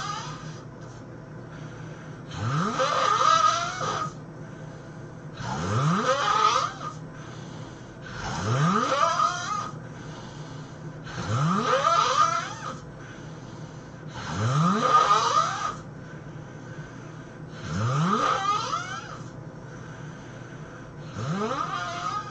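A person snoring, one long snore about every three seconds, each snore rising steeply in pitch as it goes. A steady background hiss fills the gaps between snores.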